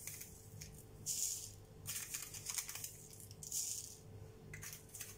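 Granulated sugar pouring off a plastic spoon into a plastic cup of lime pieces: two short hisses of falling grains, a couple of seconds apart.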